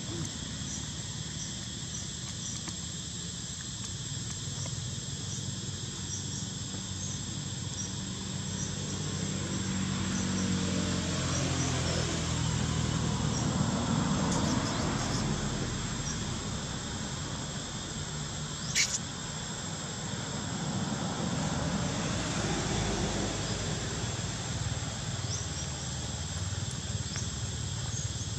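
Steady high-pitched insect drone of the outdoor background, with a low rumble that swells and fades twice and a single sharp click about two-thirds of the way through.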